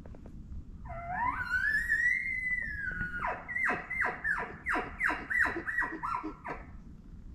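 An elk bugle: a whistle that rises steeply and holds high, then breaks into a quick string of about ten falling grunts, the chuckles.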